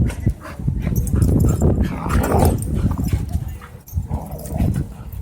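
Dogs growling while scuffling with each other, a loud, rough, low rumble that swells about two seconds in.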